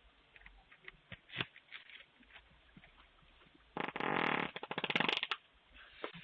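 A person farting, heard through a doorbell camera's microphone: a loud buzzy fart nearly four seconds in that breaks into a quick run of sputters and stops about a second and a half later.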